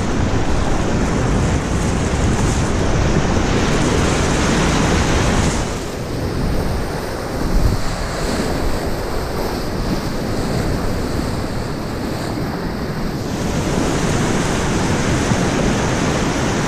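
Whitewater rapids rushing and churning around an open canoe as it runs them, with wind buffeting the microphone. The sound turns duller for several seconds in the middle, with a brief louder splash-like moment about halfway through.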